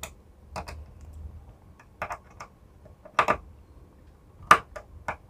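Small screwdriver clicking and tapping against the brass terminal screws of a two-way light switch as the wires are fastened: a series of sharp, irregular clicks, the loudest about three and four and a half seconds in.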